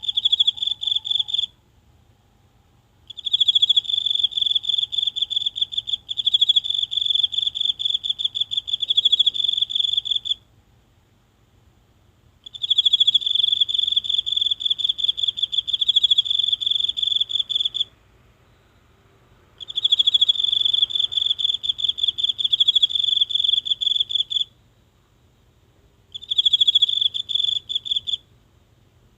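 A single insect singing close up: a high, rapidly pulsing trill that comes in bouts of a few seconds, five times, with short silent pauses between them.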